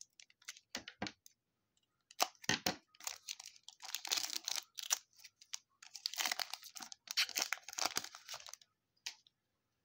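A foil trading-card pack wrapper being torn open and crinkled by hand, in several crackling bursts, the two longest in the middle and near the end.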